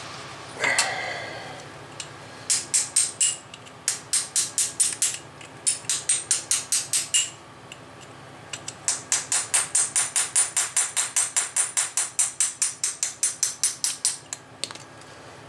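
Hammer tapping on a small steel part held in the hand: quick, ringing metal-on-metal blows about five a second, in several runs with short pauses, the longest near the end lasting about six seconds.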